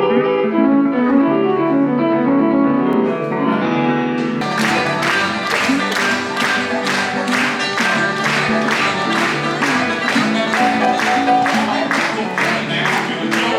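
Live band music opening a show: a keyboard intro of held organ-like chords, then drums come in with a steady beat about four and a half seconds in.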